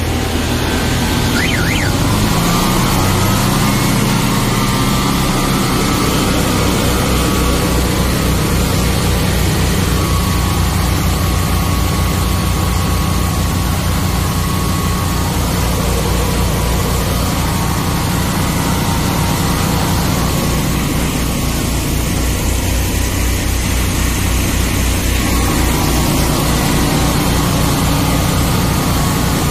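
Twin engines of an engine-driven high-pressure drain jetter running together, driving the pumps to build pressure. A loud, steady engine drone with a rapid, even pulse that settles in about two seconds in.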